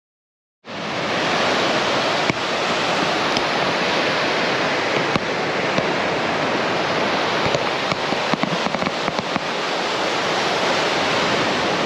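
Surf breaking on a sandy beach: a steady rush of waves that starts abruptly just under a second in, with a few sharp clicks and a brief run of small crackles a little past the middle.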